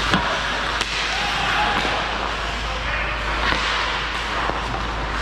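Hockey game play in a rink: a steady wash of rink noise with two sharp knocks in the first second and faint distant shouts.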